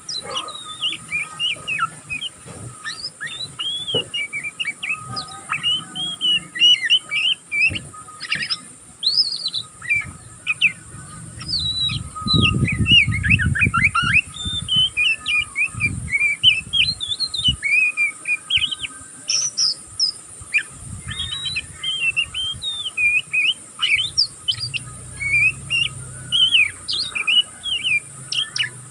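Oriental magpie-robin (kacer) twittering without a break in a rapid stream of short chirps and whistles: the 'ngeriwik' chatter of a young bird still learning its song. A low rumble comes in about halfway through.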